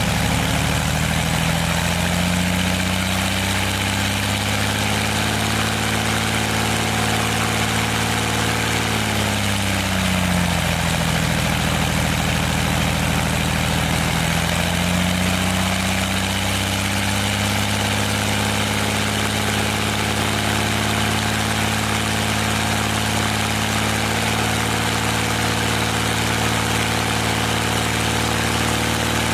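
UL Power UL520iS flat-six aircraft engine running steadily on the ground, turning its propeller. About nine seconds in, the revs drop, then build back up over the next several seconds.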